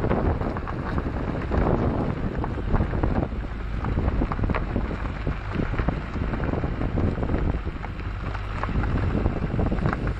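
Train running as it pulls into a station, heard from a window: a low rumble with many short clicks and knocks from the wheels and carriage, and wind buffeting the microphone.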